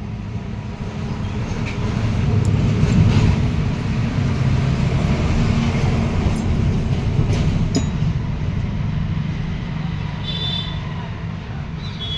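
Chainsaw's small two-stroke engine running with a steady low hum, growing louder about two seconds in and easing off again after about eight seconds.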